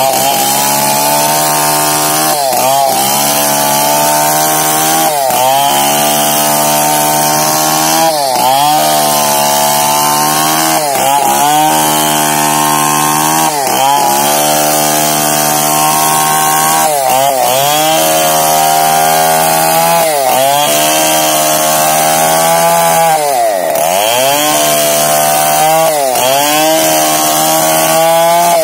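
Two-stroke chainsaw ripping a gmelina log lengthwise, running at high revs under load. Its pitch sags and recovers every two to three seconds as the cut loads the engine, with one deeper sag late on.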